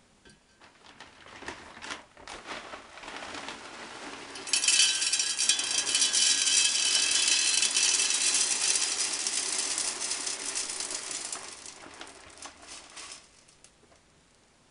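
Expanded clay pellets (LECA hydro grains) poured from a plastic bag into a glass vase: scattered clicks at first, then a dense, loud rattle of pellets clattering into the glass for about eight seconds, thinning out and stopping near the end.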